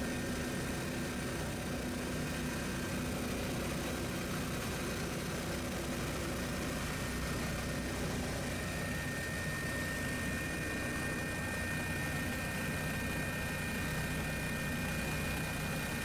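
Helicopter heard from inside the cabin: a steady engine and rotor drone with a few high, steady whining tones over it.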